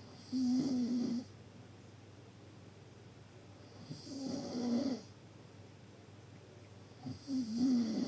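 Deep snoring: three snores about three and a half seconds apart, each lasting about a second, a low tone with a breathy hiss over it.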